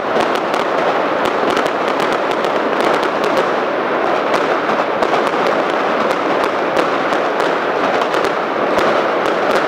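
Daytime fireworks going off in a rapid, continuous crackle of many small bangs, signalling the end of the parade.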